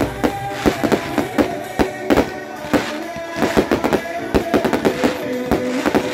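Fireworks going off: a rapid, irregular string of bangs and crackles from low cakes, mines and fountains, over background music.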